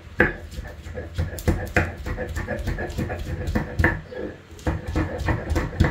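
Hands peeling garlic cloves over a grinding stone on burlap: irregular clicks, snaps and rustling, several a second, with a few louder knocks.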